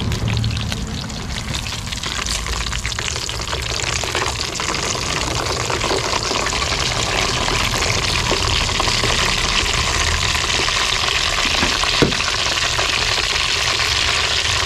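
Pork belly deep-frying in hot oil: a steady dense sizzle and crackle of spattering oil, with one sharper pop about twelve seconds in.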